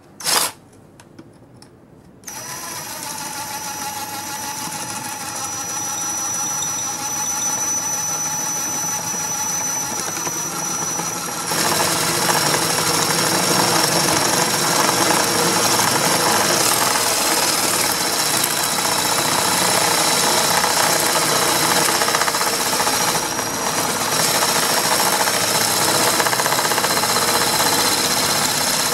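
A sharp click, then about two seconds in an impact wrench fitted with a drill chuck starts spinning with a steady whine. About eleven seconds in it gets louder and rougher as the hammer mechanism starts impacting under load, and it keeps hammering steadily.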